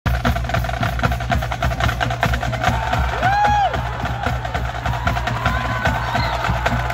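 Percussion tapping a rapid, busy rhythm of sharp wood-block-like clicks. A brief rising-and-falling whoop cuts through about three seconds in.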